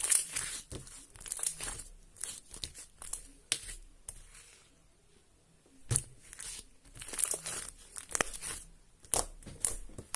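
Glitter slime being squished and stretched by hand: bursts of wet crackling and sharp clicks, with a short pause about halfway through.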